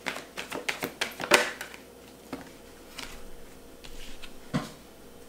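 A deck of oracle cards being shuffled and handled: a quick run of light card clicks and flicks for the first second and a half, then a few separate taps.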